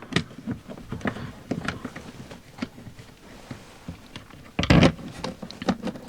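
Irregular small clicks and knocks of a hand tool and screws being worked against a car's inner door panel as the door speaker is screwed back in, with one louder clatter about four and a half seconds in.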